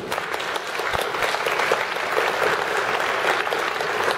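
Audience applauding, many hands clapping together at once.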